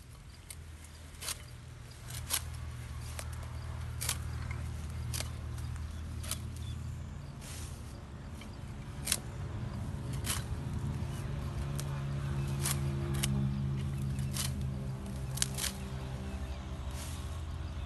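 Green fodder stems being cut by hand: sharp snaps at irregular intervals, about one a second. Underneath runs a steady low mechanical drone that shifts up in pitch about two-thirds of the way through.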